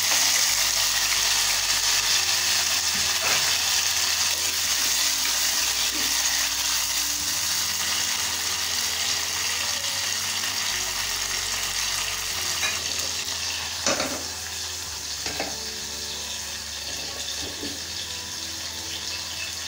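Chopped tomato and garlic sizzling in hot oil in a saucepan, a steady frying hiss that slowly dies down. A few light clicks near the end.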